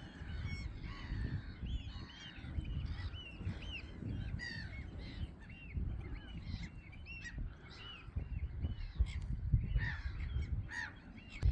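A flock of gulls calling continuously: many short, arched calls overlapping one another, over a low rumble.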